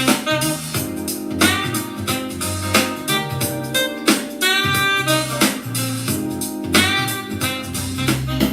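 Instrumental music with a regular drum beat, a moving bass line and a guitar or keyboard melody, played back through a portable Bluetooth speaker in a speaker sound test.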